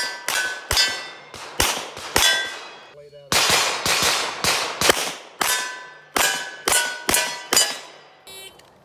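Rapid handgun fire at steel targets: a quick string of sharp shots, most followed by the ringing of a struck steel plate. The shots come roughly a third to half a second apart, with a brief break about three seconds in.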